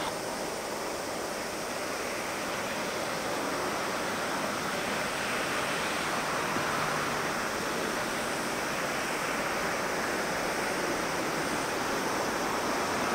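Boeing 767 jet engines at take-off power, a steady distant roar as the airliner lifts off and climbs away.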